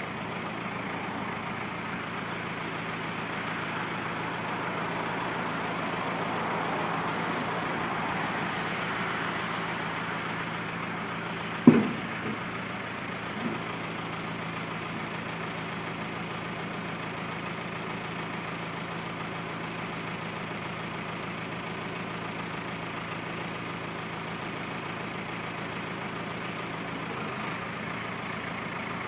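Iveco four-cylinder diesel engine of a Dieci L3500 self-loading concrete mixer idling steadily. A single sharp metallic knock about twelve seconds in is the loudest sound, followed by a smaller knock a second and a half later.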